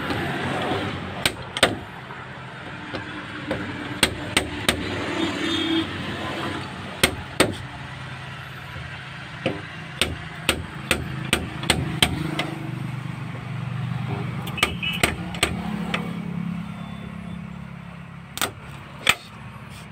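Electronic dent puller with a slide hammer being worked on a car door panel: sharp, irregularly spaced clacks, about twenty of them, some in quick runs of two or three, as the tool fires and the hammer is yanked. A steady low hum runs underneath, stronger through the middle and latter part.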